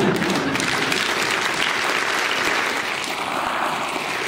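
Audience clapping: a dense, steady patter of many hands that holds at an even level throughout.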